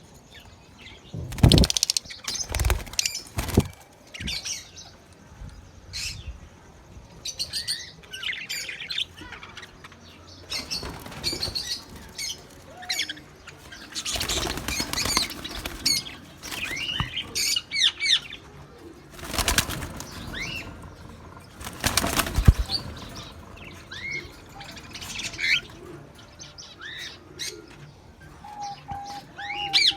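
Budgerigars chirping and twittering, with loud bursts of wing flapping several times.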